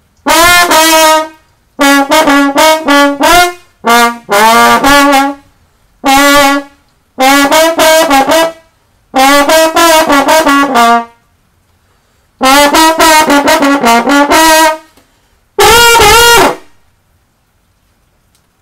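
Slide trombone played loudly in about nine short phrases of several notes each, with brief gaps between them, ending on a single held note.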